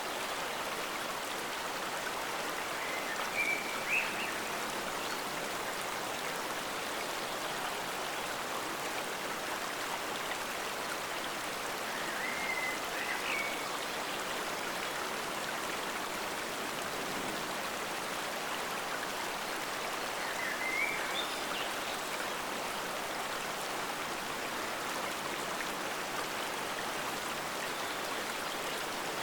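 Forest stream water flowing steadily with an even rushing sound. Short high chirps come through about every eight seconds.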